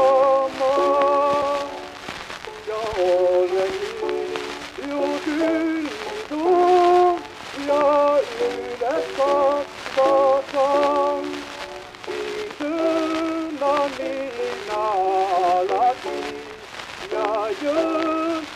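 A 1908 recording of a hymn: a solo voice singing phrase by phrase with a wavering vibrato, thin and tinny, over the steady crackle and hiss of an old record.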